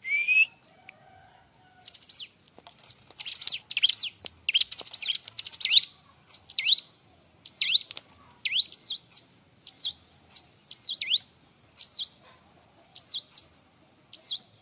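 Bar-winged prinia (ciblek) calling busily. A dense flurry of rapid chirps comes about three to six seconds in. It is followed by a steady series of high, down-slurred notes about twice a second, several of them with a quick rising note tacked on.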